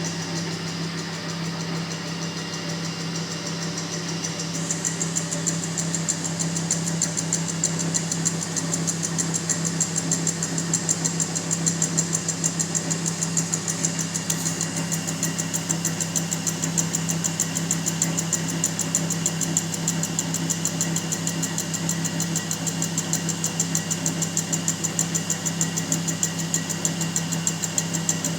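Homemade drill and milling press machine, built from Honda 100cc motorcycle parts, running with a steady hum; about five seconds in, a fast, even ticking joins it and carries on.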